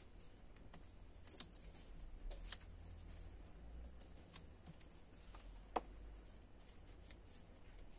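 Faint rustling and small ticks of paper and cardstock being handled as 3D foam adhesive pads are pressed onto the back of a small cardstock label; the sharpest tick comes about six seconds in.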